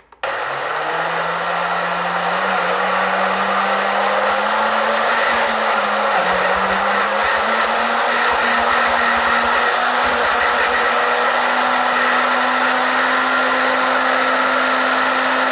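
Health Master high-powered countertop blender running continuously, chopping frozen fruit with a little water. It starts abruptly and runs loud and steady, its motor tone slowly climbing in pitch.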